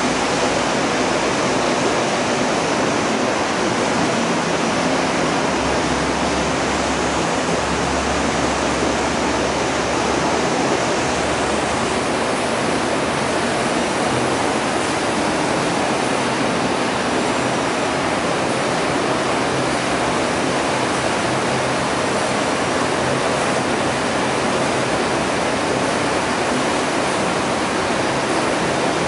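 Water rushing and splashing steadily inside the filter boxes of a water treatment plant's filtration unit, a constant loud rush with no change in its flow.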